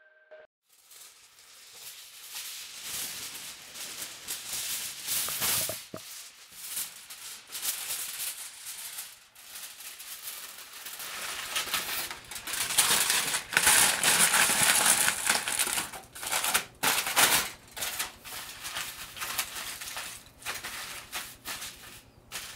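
Aluminium foil being crumpled and pressed into shape by hand: irregular crinkling that starts about a second in and is loudest around the middle.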